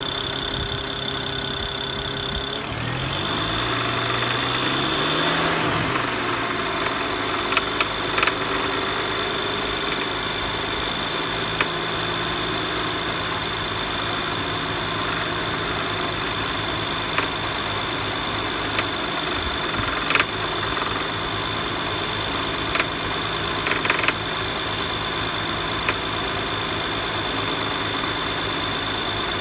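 BMW E92 335i's turbocharged inline-six idling, its engine speed rising and falling once a few seconds in, with short clanks and ticks at irregular intervals of a few seconds. The rattle comes from the power steering pulley.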